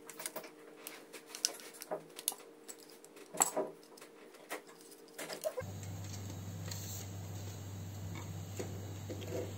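Small clicks and knocks of a plastic T5 fluorescent tube fitting being pried apart with a flathead screwdriver and handled, the loudest about three and a half seconds in. A little past halfway the clicking gives way to a steady low hum with only a few faint clicks.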